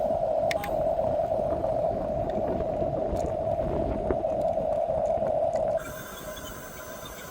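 Electric drive motors and gearboxes of a 1/16-scale RC bulldozer whining steadily while driving. About six seconds in the whine stops, leaving a quieter electrical hum.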